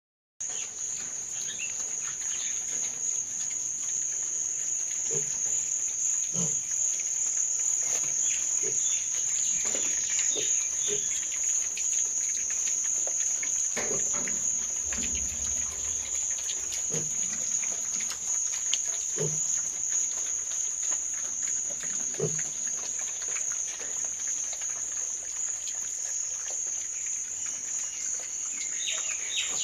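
Many pigs grunting now and then, with a few higher squeals, over a steady high-pitched drone.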